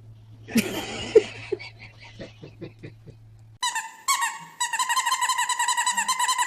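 An animal's rapid, repeated high-pitched calls, several a second, begin abruptly about three and a half seconds in. Before that there is a brief rustling noise and a few soft clicks over a low hum.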